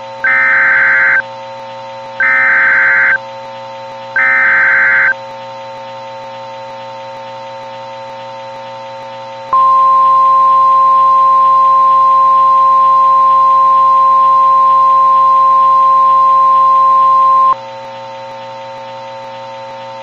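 Emergency Alert System tones: three one-second bursts of SAME header data about two seconds apart, then after a pause the single steady 1050 Hz NOAA Weather Radio warning alarm tone held for about eight seconds, over a steady background hum. The tones open a severe thunderstorm warning alert.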